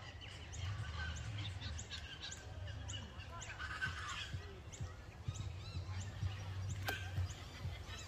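Birds chirping and calling in many short, quick notes, over a low rumble, with one sharp click about seven seconds in.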